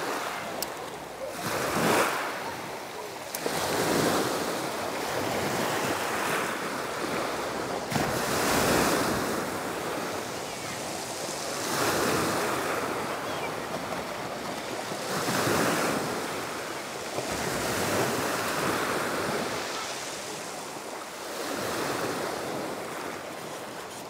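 Black Sea waves breaking on the shore and washing back, a fresh swell every three or four seconds.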